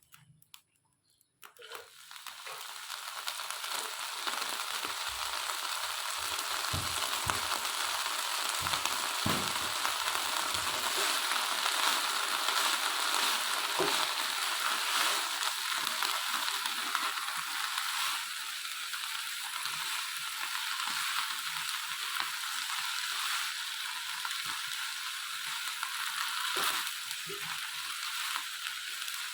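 Vegetables sizzling in hot oil in a pan, the sizzle starting suddenly about a second and a half in as the food goes in, then running on steadily, with a few low knocks of stirring in the first ten seconds.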